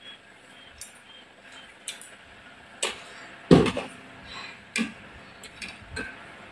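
Tableware clicking and clinking as chopsticks and spoons strike ceramic bowls and plates during a meal, in scattered single clicks, with one heavier knock about three and a half seconds in.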